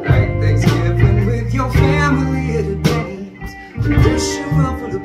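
A band playing live: mandolin picking over sustained low keyboard notes.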